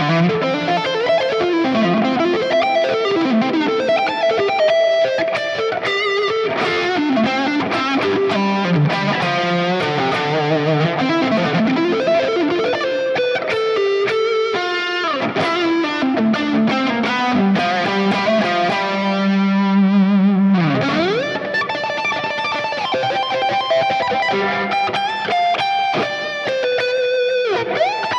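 Overdriven electric guitar lead from a Kiesel guitar's neck pickup through a Fractal Audio Axe-Fx III amp model with a BB Preamp drive block in front at low gain: fast, articulate picked runs with a held note and a couple of deep pitch swoops down and back up.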